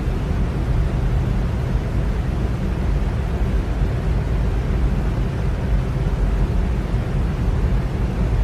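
Electric fan running steadily: a constant low rush of moving air, heaviest in the low range, with no change in speed.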